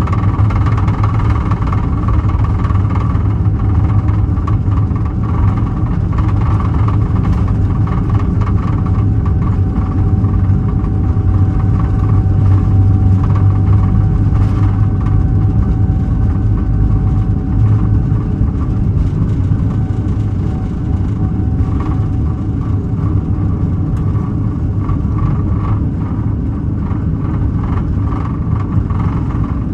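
Boeing 777-300ER's GE90 jet engines running at takeoff power, heard from inside the cabin as a loud, steady rumble with a steady whine over it, during the takeoff roll and climb-out.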